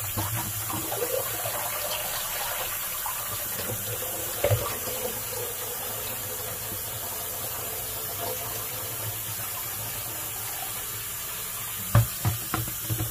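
Kitchen tap running into a stainless steel sink while raw chicken pieces are swished by hand in a plastic basin of water and the water is tipped out, a steady splashing rush. A sharp knock comes about four and a half seconds in and a few louder knocks near the end.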